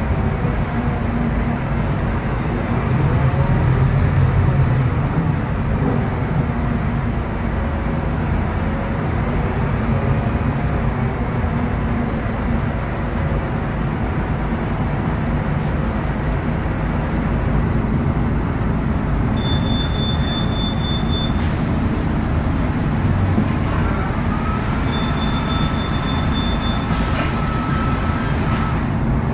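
Cabin of a Scania K280UB city bus under way: its Scania DC09 five-cylinder diesel and ZF Ecolife automatic gearbox run with a steady low rumble, along with road noise. A high steady beep sounds twice, about twenty seconds in and again about five seconds later.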